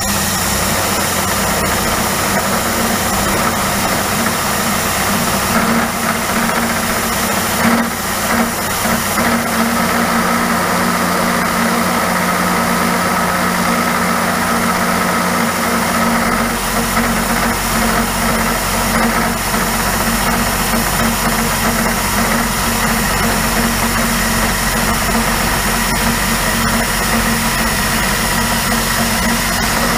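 Vertical milling machine running a half-inch end mill through a metal block: a steady spindle whine and cutting noise over the hiss of a mist coolant spray. About halfway through, a deeper steady hum joins in.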